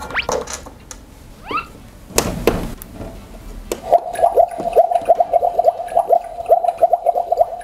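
Electronic cooking sound from a toy kitchen stove: a rapid bubbling, gurgling sizzle that starts about four seconds in, when its cooktop button is pressed. Before it come two quick rising swishes and a short rush of noise.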